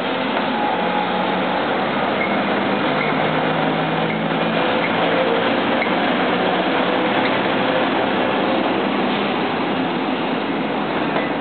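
An EF65 electric locomotive passes close by, followed by container wagons rolling past. There is a steady, loud rumble of train and wheel noise throughout, with a few faint steady tones.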